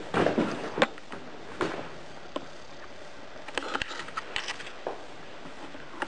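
Footsteps crunching and clattering over loose rock and debris on a tunnel floor, in irregular clusters: a run of steps at the start, single knocks after, and another run about three and a half seconds in.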